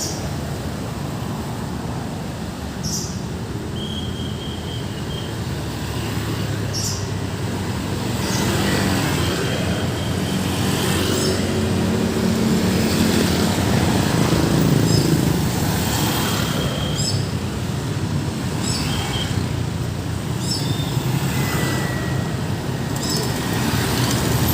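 Steady road traffic with vehicles passing, the rumble swelling from about eight seconds in. Short high chirps come every few seconds.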